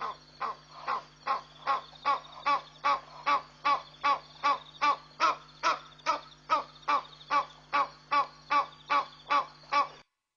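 An animal call repeated in a steady rhythm, about two and a half short calls a second, growing louder over the first couple of seconds, over a steady low hum. The sound cuts off just before the end.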